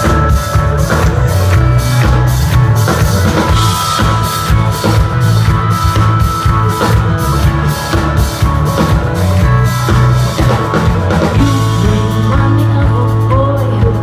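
Live rock band playing loud: a drum kit keeps a steady beat under bass and electric guitar.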